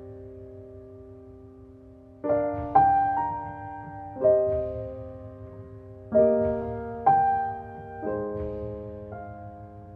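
Background music: slow solo piano, with chords struck one at a time and left to ring and fade.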